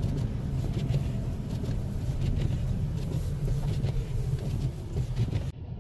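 Steady low engine and road rumble heard from inside a car's cabin while driving, with a few faint clicks over it. The sound changes abruptly near the end.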